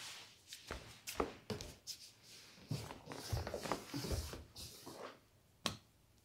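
Bare feet stepping on a wooden floor, then a person sitting down and shifting on the floor, with soft knocks and clothing rustle. A single sharp click near the end.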